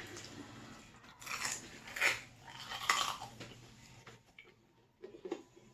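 Close-miked eating sounds: biting and chewing pizza dip, with three louder bites or chews in the first three seconds and a few light clicks of cutlery on a dish near the end.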